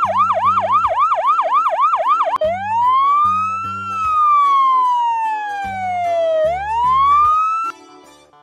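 Electronic emergency siren in a fast yelp, about five rising sweeps a second. About two and a half seconds in it switches to a slow wail that rises, falls and rises again, then cuts off suddenly near the end. Background music with a low bass line plays underneath.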